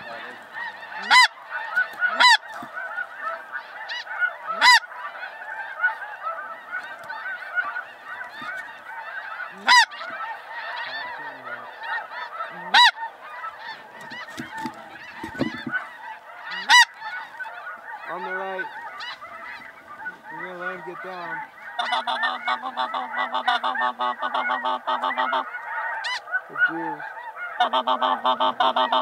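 A large flock of snow geese calling overhead: a constant clamour of many overlapping calls, with single louder calls breaking out every few seconds. Near the end the calling turns louder and denser in two stretches of rapid, pulsing calls.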